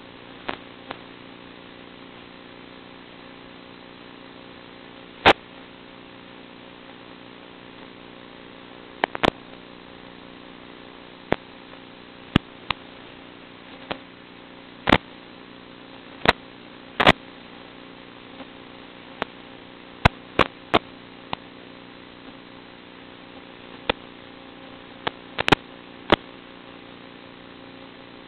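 A steady electrical buzz made of several fixed tones, with about two dozen sharp clicks and pops at irregular intervals. This is the sound of an FPV model plane's analog video-link audio recording, with the pops typical of radio-link crackle.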